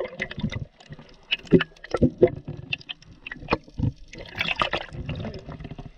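Water noise picked up by a camera held underwater: gurgling with irregular clicks and knocks, and a brief rushing noise about four and a half seconds in.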